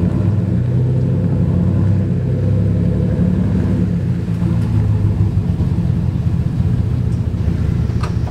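Two Chevrolet Silverado pickup trucks running at low speed as they back up a driveway, a steady low engine and exhaust rumble.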